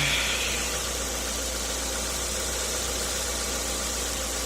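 Nissan Primera P10's four-cylinder engine idling steadily, just after a timing-chain replacement.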